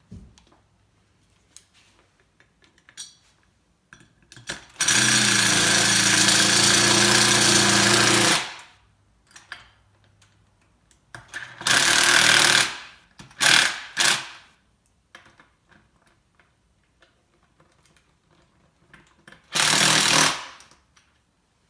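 Cordless power driver running lock nuts down onto the door-hinge bolts in bursts: one long run of about four seconds, three short bursts in the middle and a last short one near the end. The nuts are left snug but not fully tight, so the hinge can still move.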